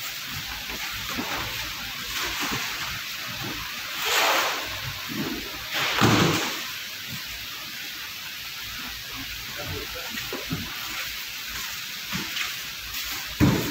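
Large plastic drums being shifted by hand on wooden pallets: rustling and scraping with soft knocks, and two louder scrapes about four and six seconds in.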